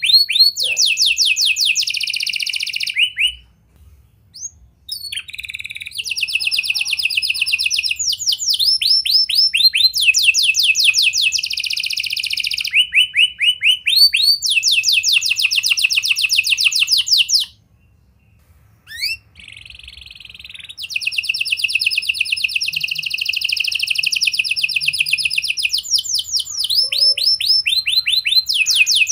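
Domestic canary singing long rolling trills of rapid repeated high notes, in phrases several seconds long with two short pauses, about four seconds in and about eighteen seconds in.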